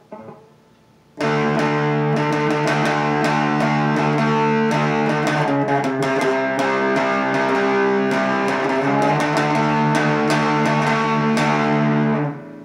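Electric guitar played through an MXR Prime Distortion pedal set with the tone full up and the distortion and output at about halfway: a distorted passage of ringing chords and quickly picked notes. It starts about a second in and stops abruptly just before the end.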